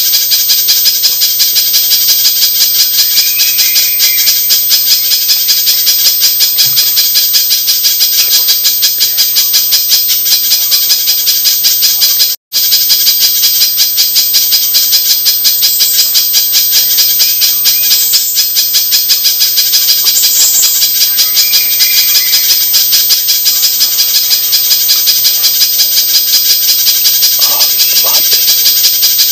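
Spiderhunter calls played as a bird-lure recording: a fast, even, unbroken run of sharp, high notes, cutting out for an instant about twelve seconds in.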